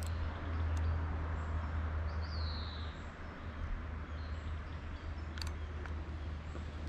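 Walking footsteps on a paved road over a steady low rumble, with a bird giving one short falling call about two seconds in.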